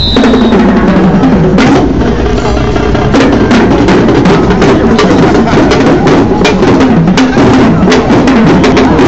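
Marching drum line with bass drums playing a loud, fast, steady cadence close by.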